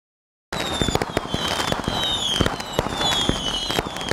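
Fireworks sound effect: a run of crackling pops with repeated falling whistles, one every half second to a second. It starts abruptly about half a second in.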